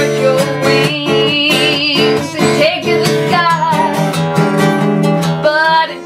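Acoustic guitar strummed in a steady rhythm, with a woman's voice holding long notes with vibrato over it.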